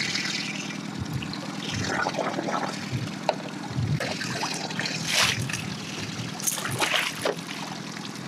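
Hooked lake trout splashing at the surface beside the boat, then scooped into a landing net, with irregular splashes and water dripping and trickling, the biggest splashes about five and seven seconds in. A low steady boat-motor hum runs underneath.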